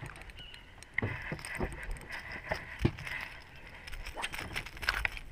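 A small fish splashing at the surface as it is reeled to the boat, then scattered clicks and knocks as it is swung aboard on the lure, with one sharp knock about three seconds in.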